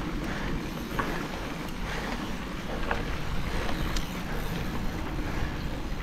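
Mountain bike being ridden, heard from a chest-mounted action camera: a steady rush of wind on the microphone and tyres rolling over the trail, with a few faint clicks.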